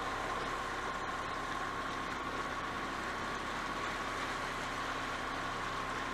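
Narrowboat engine running steadily at low revs, an even hum with a thin steady whine over it.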